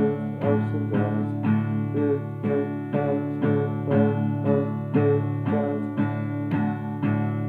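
Acoustic steel-string guitar (a Fender DG-8 with a solid spruce top) playing an instrumental piece in steady chords, about two a second, each left ringing.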